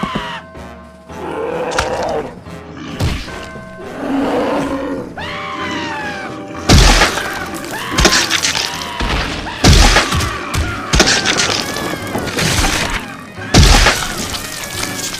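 Cartoon violence sound effects over background music: a run of loud crashing, smashing hits, about five heavy blows spaced a second or two apart in the second half.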